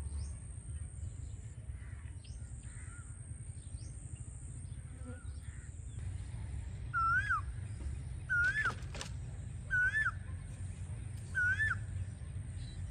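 A bird calls four times, about a second and a half apart, each a short clear call that rises and then drops. A steady low rumble runs underneath.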